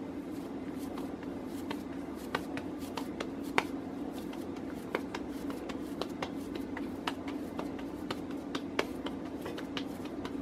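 Bare hands squeezing and patting a ball of mashed potato to seal it around a cheese filling, making irregular soft wet clicks and smacks. A steady low hum runs underneath.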